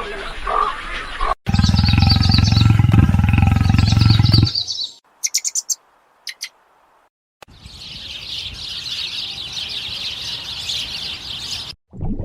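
A string of short, unrelated animal sound clips: a loud low rumbling call for about three seconds, a few brief high chirps, then a steady high-pitched chirping chorus for the last several seconds.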